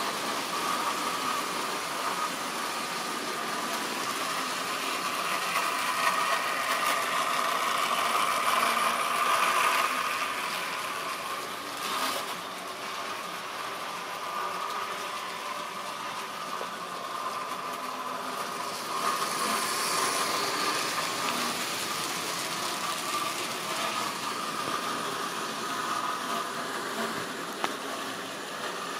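Model railway train running on the layout: a steady electric-motor whine and wheels rattling along the track, louder for a few seconds as a long rake of tank wagons passes close by.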